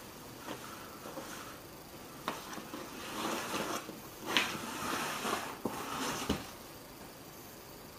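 A cat scrambling at a hole: rustling and scraping, with a few sharp knocks, starting about two seconds in and stopping shortly before the end.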